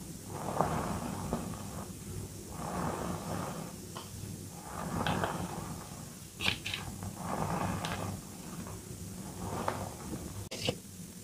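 Hands squeezing and kneading a bowl of crumbled, powdery blue gym chalk reform: soft crunching swells about every two seconds, each press sending the powder crumbling. A few sharp crackles come out from the crunching, one about halfway and the loudest near the end.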